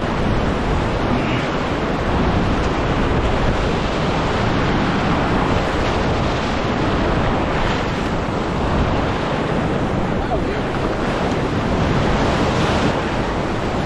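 Ocean surf surging and breaking over a rocky ledge, a steady rushing wash of water, with wind buffeting the microphone.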